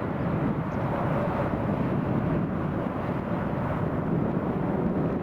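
Steady rushing jet noise of a landing Airbus A319-111's CFM56 turbofan engines, even in level throughout.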